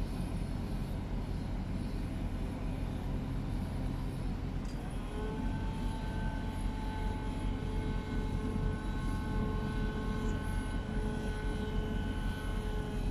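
Helicopter running steadily with a dense low rumble, a steady whine joining in about five seconds in.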